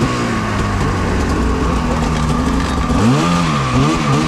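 Snowmobile engine running under load with a wide hiss of track and snow, its pitch rising and falling repeatedly from about three seconds in as the throttle is worked.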